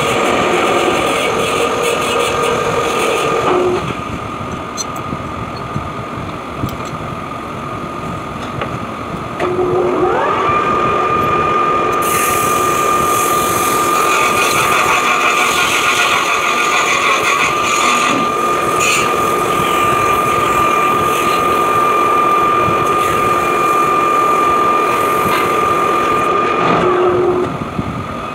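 Metal lathe running with a steady mechanical whine. The whine falls away a few seconds in. About ten seconds in it spins back up with a whine rising in pitch, then holds steady and higher until shortly before the end, when it falls away again.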